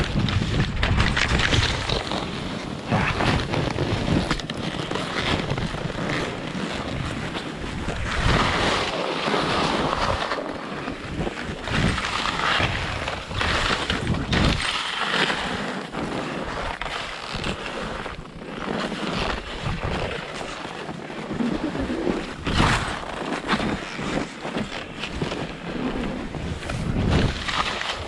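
Skis hissing and scraping through soft snow in surges as each turn bites, with wind buffeting the microphone underneath.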